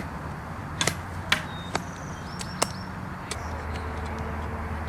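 A handful of sharp, irregular knocks in the first three seconds, over a low steady hum.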